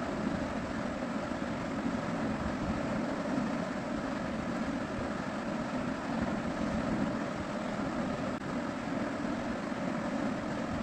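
Steady mechanical hum with no breaks or changes.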